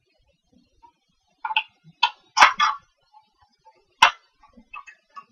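Plastic snap clips of a laptop's case cracking loose as they are pried apart with a flathead screwdriver: a run of short cracks and sharp snaps, the loudest about 2.4 s and 4 s in.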